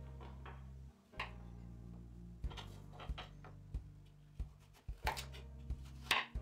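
Chef's knife cutting through raw carrots onto a wooden cutting board: a series of irregular sharp taps, the loudest near the end, over background music.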